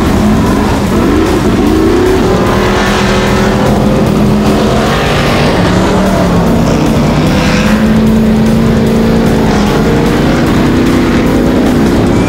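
Ultra4 off-road race car engines revving hard, the pitch rising and falling in the first couple of seconds and then running on at high revs.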